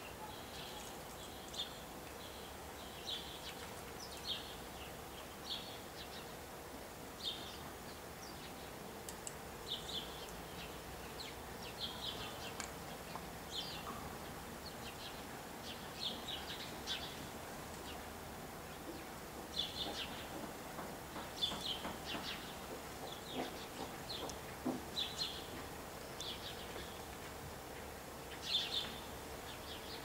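House sparrows chirping at a seed feeder: short, sharp chirps repeated every second or so, coming thicker and louder in the second half.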